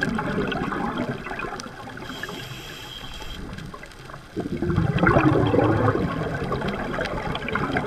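Muffled underwater gurgling and bubbling of a scuba diver's exhaled air, picked up through a camera housing. It is quieter for a couple of seconds, then grows louder again about four and a half seconds in.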